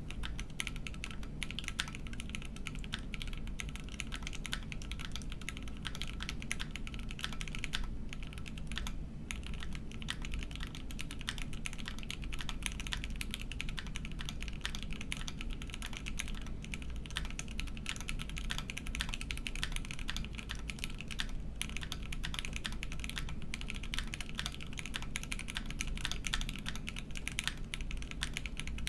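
Continuous typing on a custom mechanical keyboard with lubed linear switches (FFF, lubed with Tribosys 3204) on an FR4 plate with GMK keycaps: a steady stream of rapid keystroke clicks, with a couple of short pauses about eight and nine seconds in.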